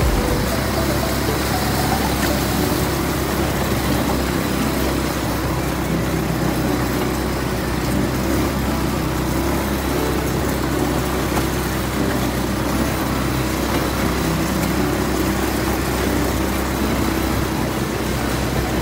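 ATV engines running steadily.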